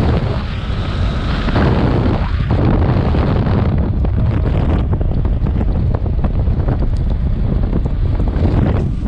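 Wind buffeting the microphone of a moving motorcycle, a loud steady low rumble, with road and engine noise beneath it.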